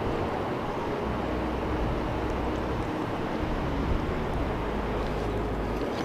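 Steady rushing of river water, with a low rumble that comes in about a second in and drops away near the end.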